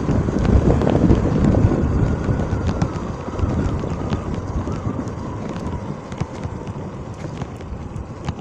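Wind buffeting the microphone of a riding motorcycle, heavy at first and easing off over the first few seconds as the bike slows, with a faint wavering engine whine underneath.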